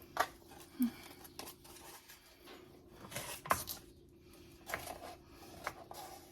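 Handling sounds of refrigerated biscuit dough being pulled apart and laid onto a casserole in a foil pan: short crinkles and soft taps, several in a row, busiest about three seconds in.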